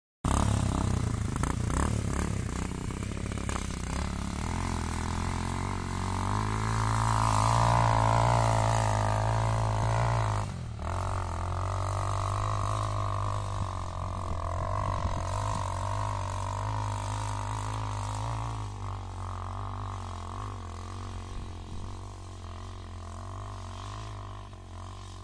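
Motorcycle engine revving hard as the bike climbs a hill, growing louder to a peak about eight seconds in. The sound dips for a moment about halfway through, then runs on steadily and fades as the bike rides away into the distance.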